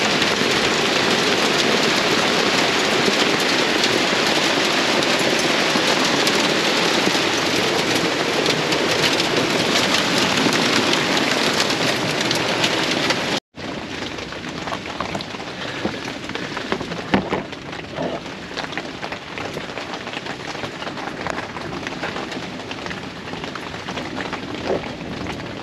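Heavy rain pouring down in a dense, steady rush. About halfway through it cuts out abruptly for an instant and comes back as lighter rain, with separate drops striking a surface.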